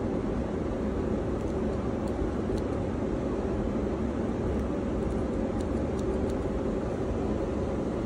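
Steady low mechanical rumble, like a running vehicle or machinery, with a few faint snips from the small scissors of a pocket multitool cutting a loose thread.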